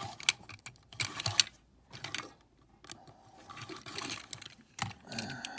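Small die-cast metal toy trucks being handled on a hard surface: scattered clicks and light rattles as they are gripped, moved and set down.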